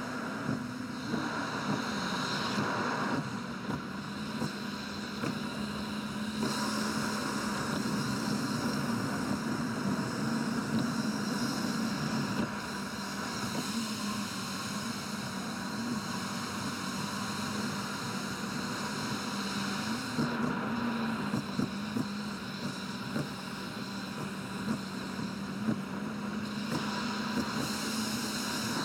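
Car driving on an expressway, heard from inside the cabin: a steady rush of road and tyre noise with a constant low hum, the driving sound played back at six times speed.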